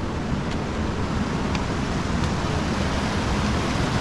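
Mountain stream rushing over rocks: a steady wash of water noise, with a few faint ticks.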